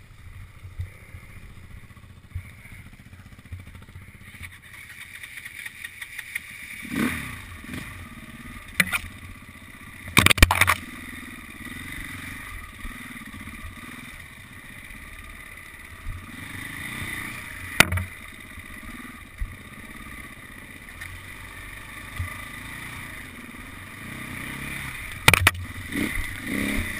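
KTM enduro motorcycle engine running steadily while the bike rides a rough trail, with several sharp knocks and clatters from the bike as it hits bumps.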